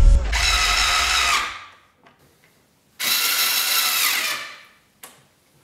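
ROK 4.8V cordless screwdriver's motor running in two separate runs of about a second and a half, driving screws into a metal cabinet hinge. Each run winds down at its end.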